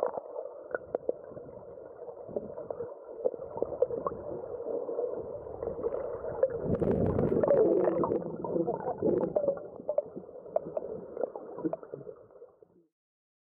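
River water heard through a camera held underwater: a dull, muffled gurgling rush with many small clicks, louder in the middle, cutting off suddenly shortly before the end.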